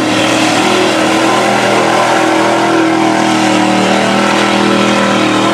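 Lifted Ford Bronco II mud truck's engine held at high revs with a steady pitch as it drives hard through a mud pit, its big tyres churning and throwing mud.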